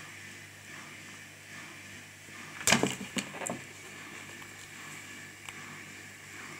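A sudden loud knock, followed by two fainter knocks about half a second and a second later, over low room noise.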